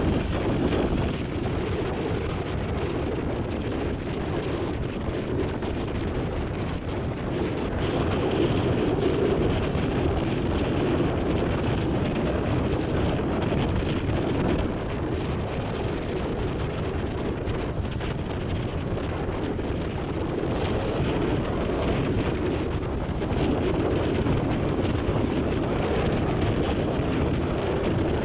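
Wind blowing across the microphone: a steady low rumble of wind noise that swells slightly now and then.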